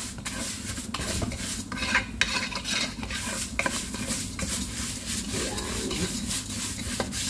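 Wooden spatula stirring and scraping thin vermicelli as it browns in oil in a nonstick frying pan, in repeated short strokes over a light sizzle.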